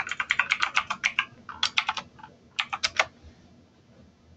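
Typing on a computer keyboard: a fast run of keystrokes in quick bunches with short gaps, stopping about three seconds in.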